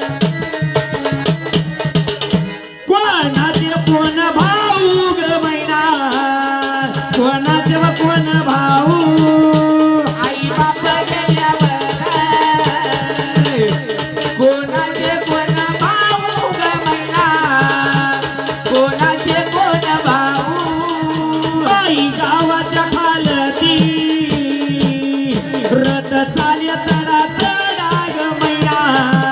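Live Marathi folk music: a hand drum keeping a fast rhythm under a wavering melody line, with a brief drop-out about three seconds in.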